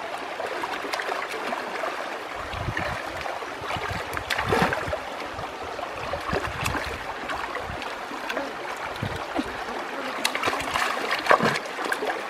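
Shallow stream running over rocks, with irregular splashes and sloshing as hands and feet move in the water from about two seconds in.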